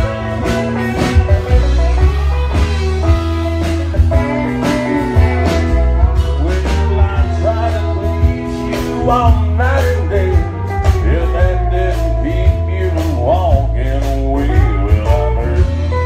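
Live country band playing an upbeat honky-tonk dance song: electric guitars over a steady bass line and a drum-kit beat.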